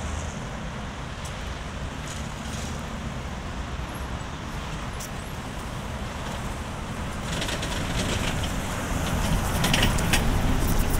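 Belkommunmash BKM 321 trolleybus approaching and drawing up alongside over steady street-traffic noise. Its running noise grows louder over the last few seconds, with a crackling hiss as it comes close.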